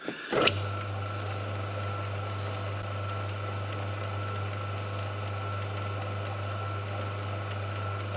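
A small metal lathe switched on with a click about half a second in, its motor then running steadily with a low hum and a thin high whine. The tool is not cutting the work.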